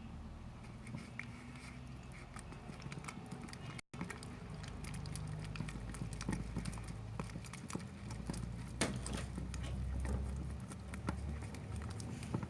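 A stirring utensil clicking and tapping irregularly against a container while white PVA glue is mixed with water.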